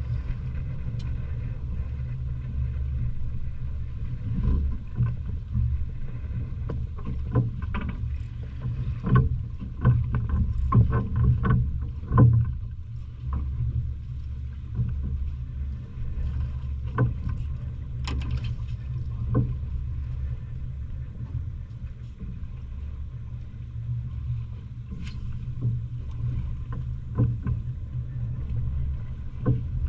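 A boat's engine running with a steady low hum, with scattered irregular knocks and slaps over it, most of them in the first half.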